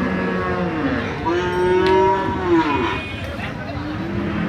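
A cow mooing: one long moo that rises and then falls in pitch, starting about a second in and lasting nearly two seconds.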